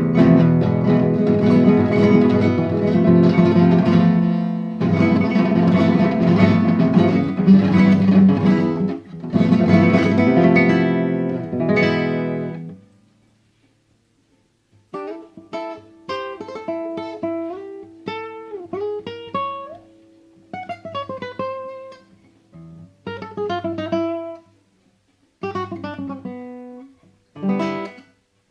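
Solo guitar improvisation: full strummed chords for about the first twelve seconds, then a pause of about two seconds, then sparse picked notes and short phrases broken by brief silences.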